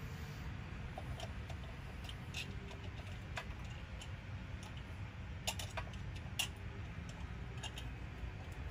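Light, irregular clicks and taps of a Mikuni carburetor and its intake manifold being handled and fitted onto the engine's mounting studs, with a couple of sharper clicks about two-thirds of the way through, over a steady low hum.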